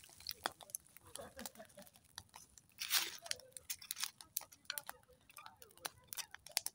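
Small wood fire of dry twigs crackling, with many irregular sharp snaps and pops and a louder rustle about three seconds in.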